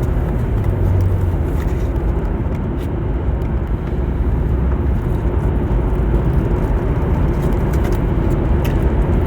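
Steady car cabin noise: the low rumble of a car heard from inside, with a few faint clicks.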